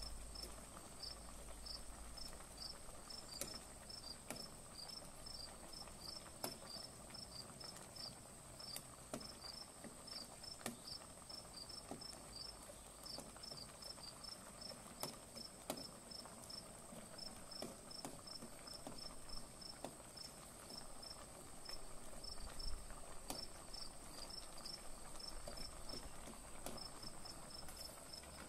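Insects, likely crickets, chirping steadily and faintly: a continuous high trill with rapid repeated chirps a few times a second. Occasional faint clicks of a metal spoon against a perforated metal strainer.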